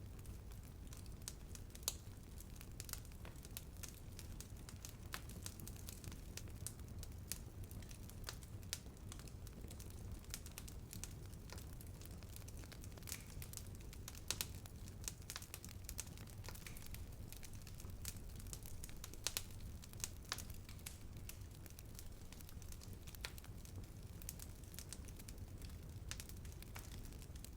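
Wood fire burning, with a low steady rumble of the flames and frequent sharp pops and crackles scattered irregularly throughout.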